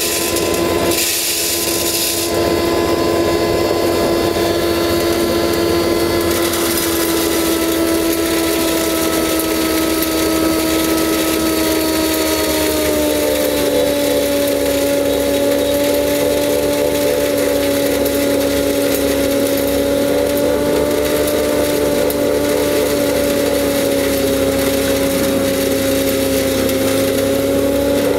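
Belt-driven grain grinder (atta chakki) running with a steady hum while maize kernels are fed in and ground. Kernels rattle into the hopper in the first two seconds, and about halfway through the hum drops slightly in pitch as the grinding load comes on.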